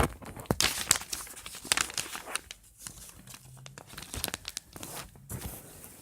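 Sheet of paper being handled and folded, with sharp crinkles and rustles, most of them in the first half.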